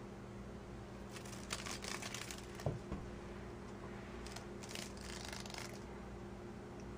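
Faint, dry scratching and rustling in two spells, about a second in and again around four seconds, with a soft thump between them: a cat batting a downed dragonfly across a tile floor. A low steady hum runs underneath.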